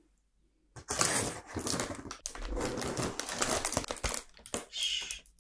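Crinkling and rustling of a snack bag being handled and opened close to the microphone, a dense run of small crackles starting about a second in.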